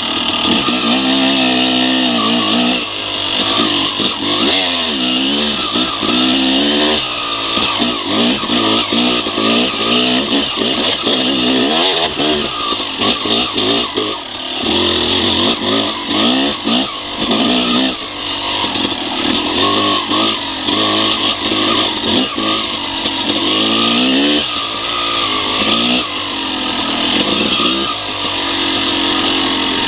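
Dirt bike engine revving up and falling off again and again while riding a rough, twisting trail, with a steady rush of wind on the goggle-mounted microphone and frequent knocks from bumps.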